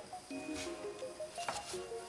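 Background music, a light melody of short notes, with one sharp tap about a second and a half in as the plastic dough scraper strikes the countertop.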